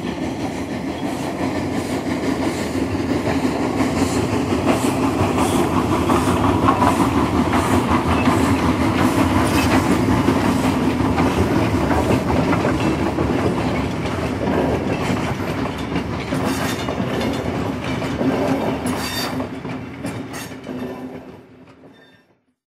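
A train running along rails: a steady rumble with clickety-clack from the wheels, swelling up at the start and fading out near the end.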